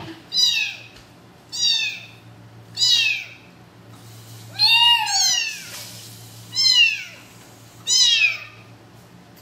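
A very young kitten meowing repeatedly while held wet over its bath water: about six high-pitched cries a little over a second apart, each falling in pitch.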